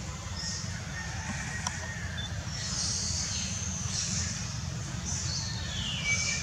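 Outdoor ambience: a steady low rumble under scattered high-pitched chirping calls, one of which glides downward in pitch about five seconds in.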